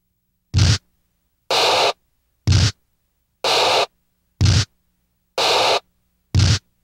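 Rhythmic bursts of static-like noise, about one a second, separated by silence: short bursts with a low thud alternate with longer plain hisses, each cut off sharply like an edited sound effect.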